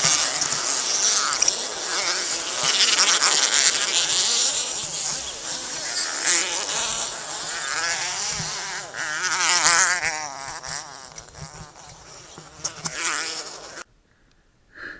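Trail motorcycle engines revving with a high, buzzing note, the pitch rising and falling as the throttle is worked, over a rush of noise; the sound cuts off abruptly near the end.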